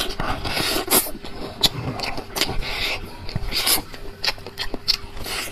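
Close-up eating sounds of a person sucking and gnawing at the end of a braised beef marrow bone and chewing the tendon from it, in irregular wet bursts with sharp clicks.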